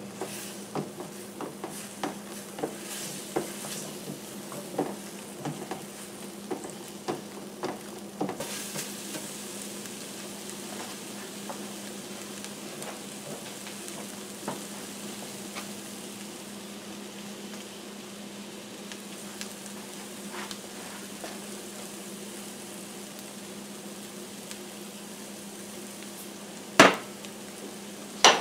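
Eggs and beans sizzling in a copper-coloured ceramic nonstick skillet. For about the first eight seconds a plastic spatula stirs and taps against the pan in quick clicks, then the frying goes on as a steady sizzle. Two sharp knocks come near the end.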